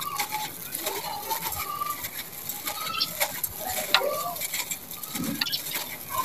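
Dry sand-cement block crumbling in the hands, gritty sand and gravel crunching and pouring down in a continuous crackle, with a few sharper cracks as pieces break off.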